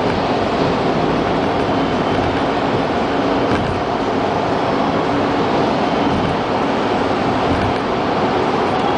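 Road and tyre noise of a car driving at highway speed through a road tunnel, heard from inside the cabin: a loud, steady noise that echoes off the tunnel walls.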